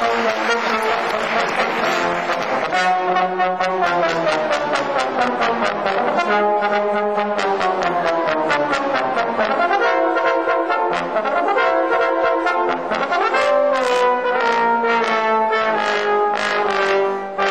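Brass music: horns and trombone-like instruments playing a tune with notes that slide in pitch, over a quick, regular pulse.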